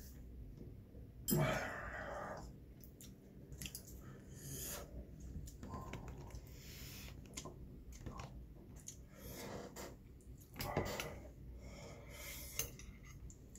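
Close-miked eating sounds: chewing, with metal chopsticks clicking and scraping against the food containers. A sudden knock about a second in is the loudest sound.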